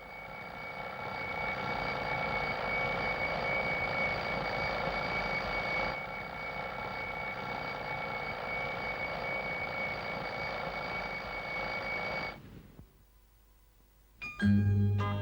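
Alarm clock bell ringing continuously for about twelve seconds, then cutting off abruptly.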